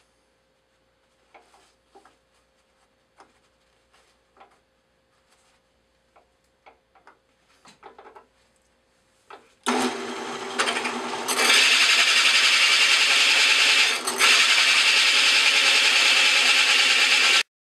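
Faint scattered clicks and rustles, then a Craftsman drill press starts a 3-3/8 in Starrett hole saw cutting into quarter-inch cast iron plate: a loud, steady scraping noise that starts suddenly about ten seconds in, grows louder a moment later, and cuts off suddenly near the end.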